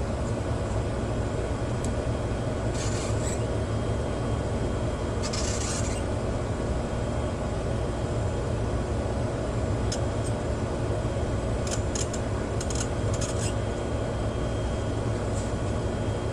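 Desoldering at a workbench: a steady low hum, with two short hisses and a few light clicks and scrapes as solder is worked off component leads on the receiver's circuit board.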